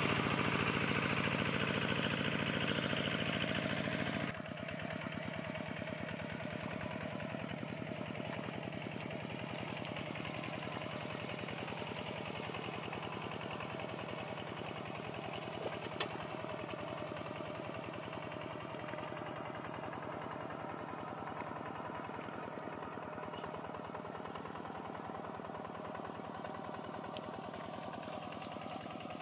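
Two-wheel hand tractor's engine running steadily with an even chugging pulse. It drops to a lower, steady level about four seconds in.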